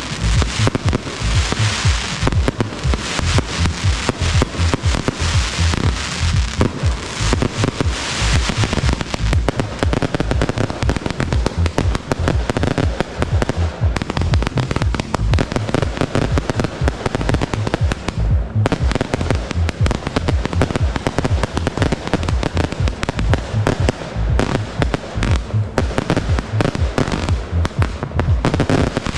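Aerial fireworks display: a near-continuous run of shell bursts, bangs and crackle, densest in the first third, with music playing along.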